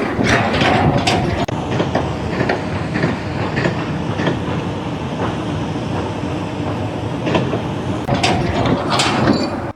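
Loud, steady mechanical rattling and clattering with irregular knocks and clanks mixed in, cutting off suddenly near the end.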